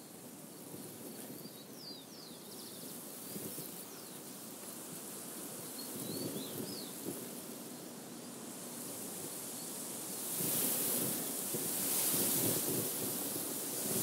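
Wind blowing through a field of ripe, dry wheat: a steady rustling hiss with wind buffeting the microphone, growing louder with a gust in the last few seconds. A small bird chirps faintly a few times in the first half.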